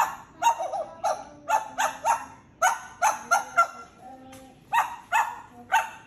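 African grey parrot mimicking a dog's barking: a quick run of a dozen or so short barks, mostly in groups of two or three, with a brief pause about four seconds in.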